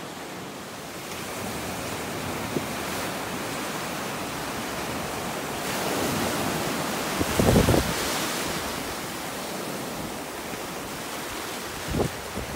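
Ocean surf washing onto a beach, a steady rush that swells and ebbs as waves break. Wind buffets the microphone with a low rumble about seven seconds in and briefly again near the end.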